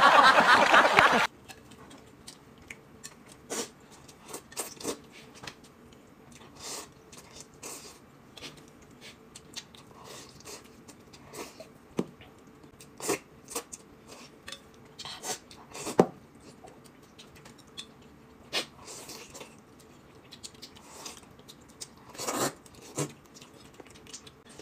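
Eating at a table: scattered chewing and slurping, with short light clicks of chopsticks against metal bowls.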